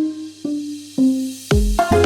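Background music: a few plucked or mallet-like notes about every half second over a soft hiss, then a deep bass and beat coming in about one and a half seconds in.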